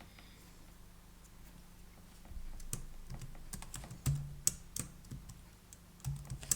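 Typing on a computer keyboard: irregular key clicks starting about two seconds in, a few of them struck harder.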